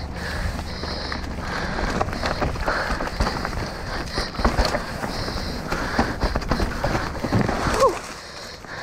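Mountain bike descending a rocky trail at race speed: tyres rattling over rock, with rapid clatter and knocks from the chain and frame over a steady rush of noise. A short squeal near the end.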